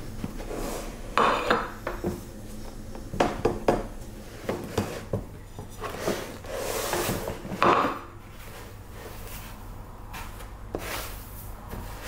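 A ceramic plate and bowl being knocked and set down on a table, several sharp clinks and knocks, with a rustle of hands in panko breadcrumbs in between and after.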